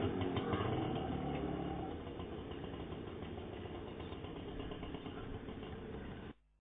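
Auto rickshaw engine running steadily and growing gradually fainter, then cutting off suddenly near the end.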